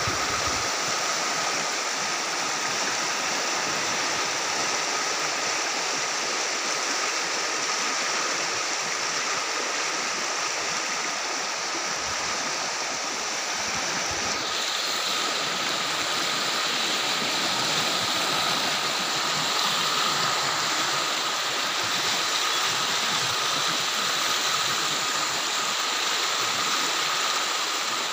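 Muddy floodwater flowing fast across a field, a steady rushing noise, with a thin steady tone running under it.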